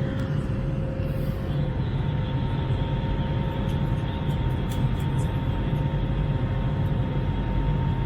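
Airbus A321 jet engines and airflow heard inside the passenger cabin: a steady low rumble with faint steady whines over it.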